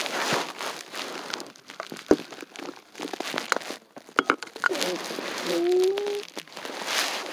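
Snow crunching and crinkling right against the phone's microphone in a run of irregular crackles and clicks, with a short whine-like tone about two thirds of the way in.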